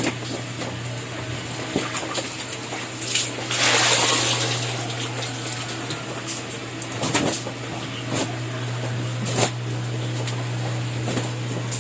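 Water splashing and trickling in a flooded room, with scattered drips or splashes and one louder rush of water about four seconds in, over a steady low hum.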